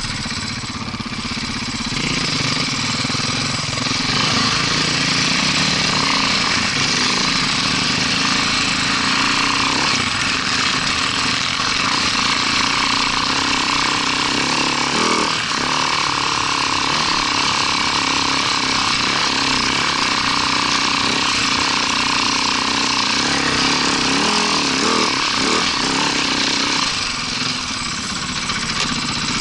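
Husaberg FE570's single-cylinder four-stroke engine running under throttle, picked up by a helmet-mounted camera. It pulls away and gets louder over the first couple of seconds, runs steadily at trail speed, and eases off near the end.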